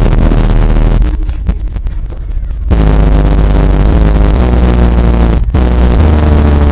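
Four Kicker L7 12-inch square subwoofers in ported enclosures playing bass-heavy music at extreme volume, the deep bass overloading the microphone into a distorted rumble. The bass eases off for about a second and a half after the first second, then returns full force, with a brief dropout near the end.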